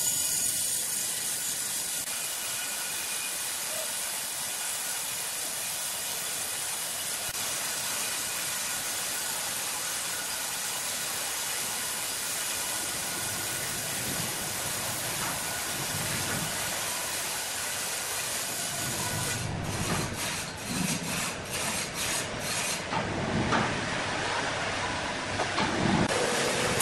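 Horizontal band sawmill blade cutting lengthwise through a large hardwood block: a steady high hiss with faint whining tones. It turns uneven, rising and falling, in the last several seconds.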